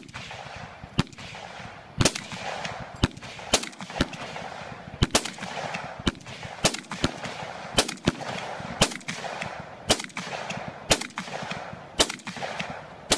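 FN FNC 5.56 mm assault rifle firing single shots close by, about one a second and now and then two in quick succession, each a sharp crack.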